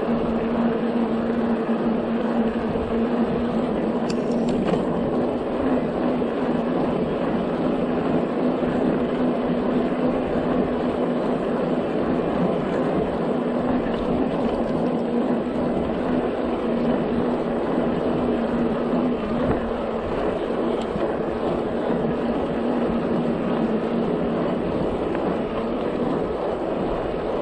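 Riding noise from a Rad Power Bikes RadMini electric bike on the move: steady wind and tyre rush, with a steady low hum that fades out near the end.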